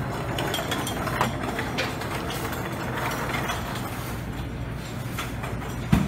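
Buffet dining-room noise: a steady low hum with scattered light clicks and clatter, and one sharp knock near the end.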